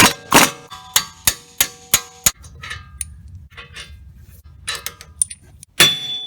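Series of hammer blows on steel with metallic ringing, about three a second at first, then scattered strikes and a quicker run near the end: the hub assembly is being knocked loose from the knuckle, where it sits corroded.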